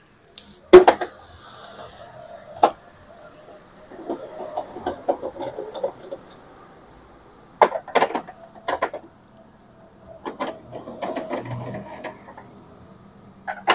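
Irregular knocks, clicks and rattling of plastic and metal parts as the inside of a dot-matrix printer is handled with a screwdriver. The sharpest knock comes about a second in.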